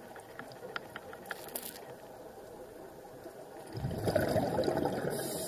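Scuba diver's exhaled regulator bubbles, heard underwater through the camera housing: a burst of bubbling about four seconds in that lasts over a second, after a stretch of faint scattered ticks.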